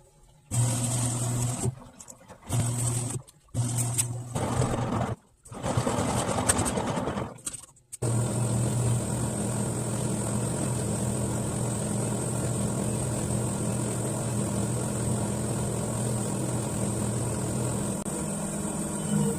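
TCL TWF75-P60 front-load inverter washing machine running its wash, a steady motor hum with a thin high whine. It comes in several short stretches broken by silences during the first eight seconds, then runs on evenly.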